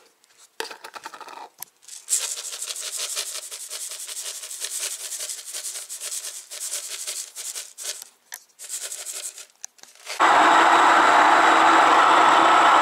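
Hulled hemp seeds poured from a container onto flour in a glass bowl: a dry, crackling rustle lasting several seconds. About ten seconds in it cuts suddenly to a much louder Hawos electric stone grain mill running, a steady grinding noise as it mills grain into flour.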